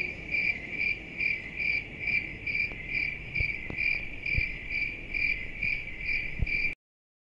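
A cricket chirping in an even rhythm, a little over two chirps a second, cutting off suddenly near the end.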